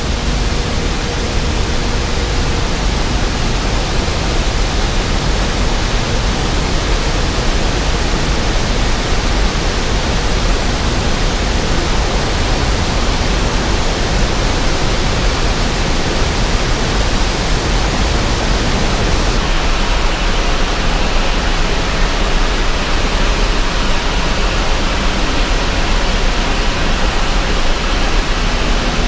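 Loud, steady rush of water from a dam release, an even noise with no breaks, whose tone shifts slightly about two-thirds of the way through.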